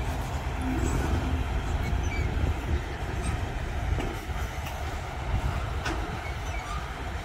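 Train rolling past with a steady low rumble and some wheel clatter.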